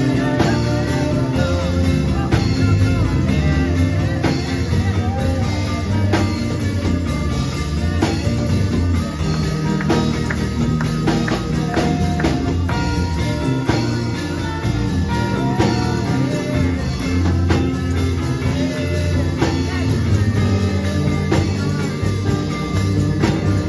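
Live church band playing a steady groove on electric guitars, keyboard and drum kit, with a heavy low bass line and regular drum hits.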